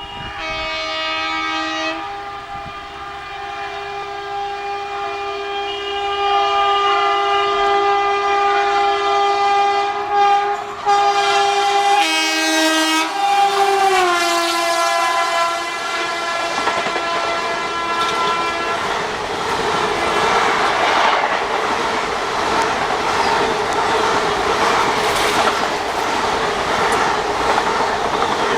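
WAP-4 electric locomotive sounding its two-tone horn for about fourteen seconds as it approaches at speed, the horn's pitch dropping as it passes. Then the express coaches rush past, wheels clattering over the rail joints.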